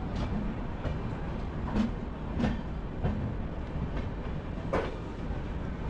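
Passenger train rolling slowly, a steady low rumble with about half a dozen uneven clacks of the wheels over the track, the loudest near the middle and toward the end.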